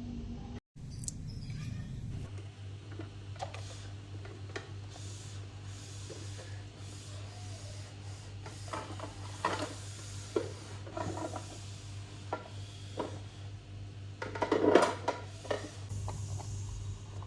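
Kitchenware being handled: scattered clinks and clatters of dishes and utensils being moved and set down, with a louder clatter near the end, over a steady low hum.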